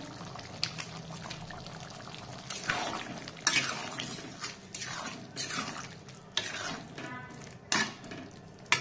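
Metal spatula stirring curry in a steel kadai, starting a couple of seconds in, with repeated scraping strokes and a few sharp clinks against the pan.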